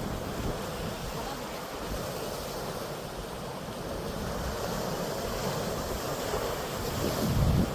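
Sea waves washing and breaking on the shore, with wind rumbling on the microphone. The wash swells to a louder rush near the end.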